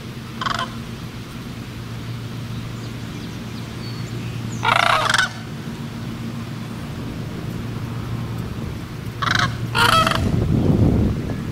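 Sandhill crane calling with its rolling bugle: a short call about half a second in, a longer, louder call around five seconds, and two calls close together just before ten seconds. A steady low hum runs underneath, and a low rumble swells near the end.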